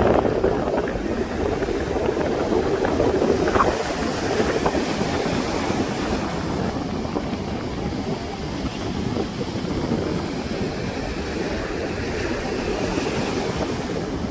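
Sea waves breaking and washing on a sandy beach, a steady rushing surf that swells and eases, with wind buffeting the microphone.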